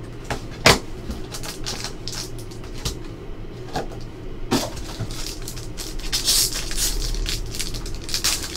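Hands opening a trading card box and its foil pack: a sharp knock early on from the box handling, then scattered clicks, and from about halfway through a continuous crinkling and tearing of the foil wrapper.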